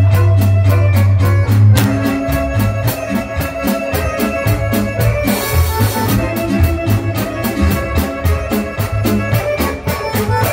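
Live band playing with an accordion leading over a drum kit and bass, on a steady beat. A cymbal wash comes in about halfway through.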